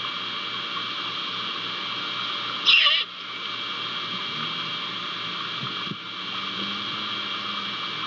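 Great horned owl giving one short, harsh screech about three seconds in, over a steady background hiss.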